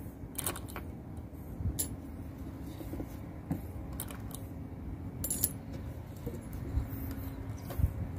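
Steel balls clicking against the steel ball nut and worm shaft of a recirculating-ball power steering gear as they are fed in one at a time: light, irregular metallic clicks a second or so apart.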